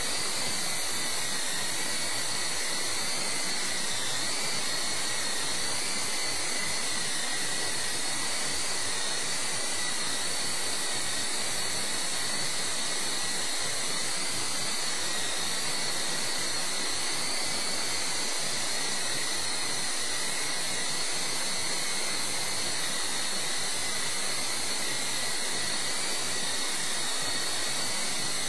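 Esky Co-Comanche coaxial electric RC helicopter in flight: a steady high motor whine over the rushing hiss of its twin rotors, its pitch wavering slightly.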